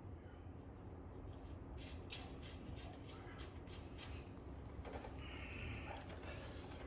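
Quiet clicks and clinks of hand tools and parts being handled during work on a motorcycle wheel, a run of them in the middle, then a brief higher-pitched scrape or squeak, over a low steady background hum.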